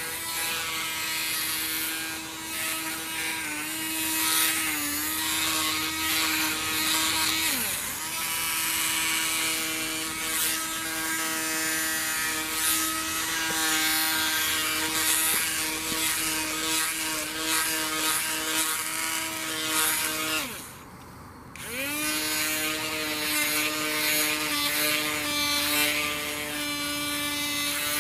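Small battery-powered motor and gears of a Knot Out spinning dog-grooming brush, whining steadily as its spinners work through the fur. The pitch sags briefly about 8 s in. About 20 s in it winds down to a stop and spins up again a second later. The owner describes the gears as really grinding and blames the new batteries running down fast and something breaking inside.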